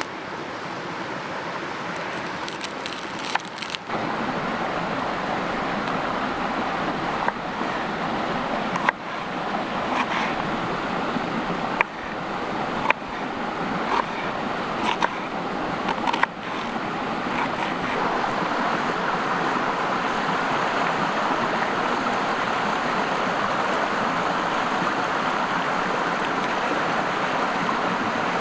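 Creek water rushing steadily, with a scattering of sharp clicks and knocks between about three and sixteen seconds in.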